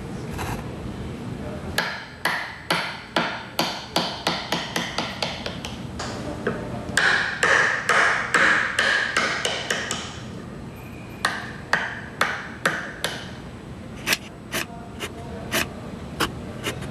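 Chisel cutting away wood from a cherry-wood printing block for a woodblock print: a run of sharp taps, about two or three a second, with a stretch of scraping cuts in the middle.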